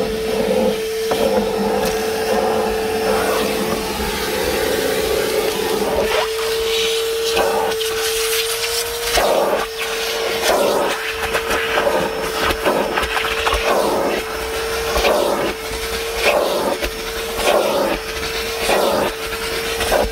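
DeWalt 9-gallon, 5 hp wet/dry shop vacuum running with a steady whine while its nozzle is worked over a truck's dirty interior, with uneven rushes and scrapes as it picks up debris.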